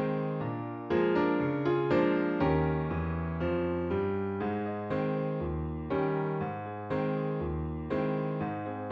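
Background music: electric piano chords, a new chord struck about once a second and fading away between strikes.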